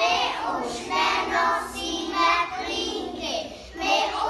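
A group of young children singing together, with a short break between lines about three and a half seconds in.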